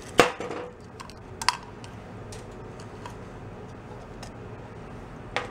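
Metal carburetor parts clinking and clacking on a steel workbench as a VW carburetor is taken apart and its top cover set down. There is a sharp metallic clack about a quarter second in, a ringing clink about a second and a half in, and a few lighter taps after that.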